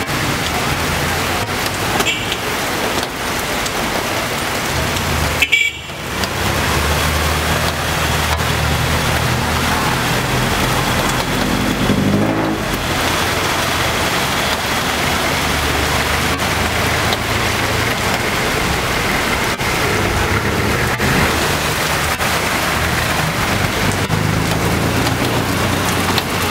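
Steady heavy rain on a flooded street, with traffic engines running as vehicles, among them a jeepney, drive through the standing water. The sound drops out briefly about five and a half seconds in.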